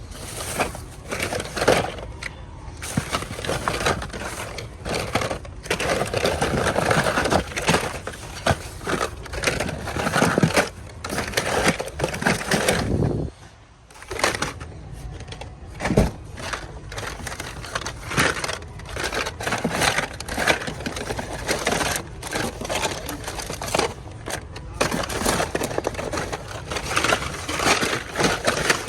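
Close-up rummaging through packaged toys: plastic blister packs and cardboard rustling, crackling and clattering with many quick clicks, with a short lull about halfway through.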